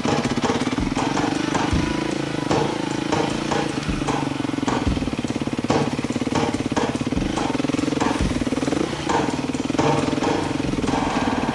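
Dirt bike engine running steadily at low revs while the bike rides through a muddy, puddled trail. Frequent short knocks and splashes come from the bike going over rocks and through water.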